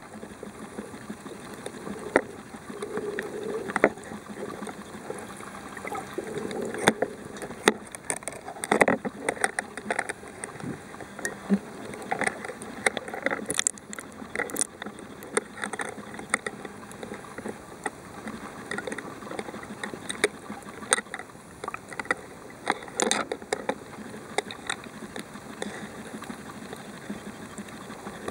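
Underwater sound picked up by a submerged camera: a steady muffled rush of water with many irregular sharp clicks and crackles scattered through it.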